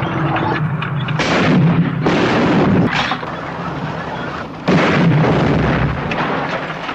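War-film battle sound: artillery fire, with sudden heavy blasts about a second in and again near five seconds in, each fading out, over a steady low rumble.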